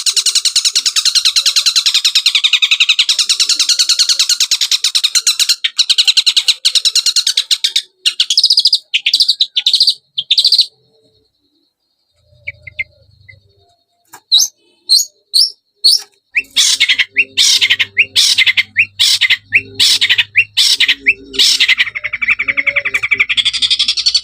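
Long-tailed shrike (cendet) song used as a bait recording to prompt caged cendets to sing. It opens as a fast, continuous high chatter, then breaks into separate sharp notes with a brief pause about halfway through. A run of spaced loud notes follows and builds back into fast chatter near the end.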